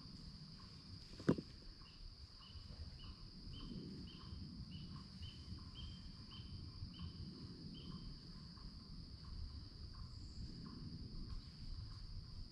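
Insects, crickets, droning in summer woods as a steady high-pitched hum, with a short chirp repeating about twice a second for several seconds. A single sharp click about a second in is the loudest sound.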